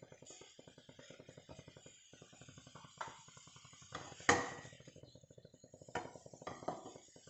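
Soft background music with a plucked, guitar-like sound, broken by a few light clicks and knocks, the loudest about four seconds in.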